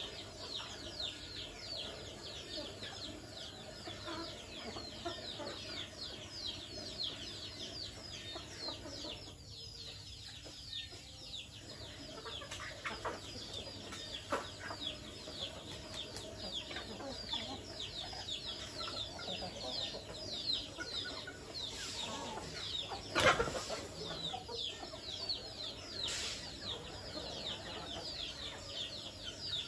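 A flock of domestic chickens feeding, hens clucking throughout under a dense run of short high chirps that fall in pitch, several a second. About 23 seconds in there is one louder sharp sound.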